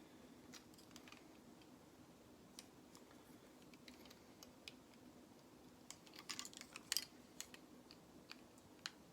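Small Lego plastic pieces being handled and pressed together: scattered light clicks and taps, busiest about six to seven seconds in.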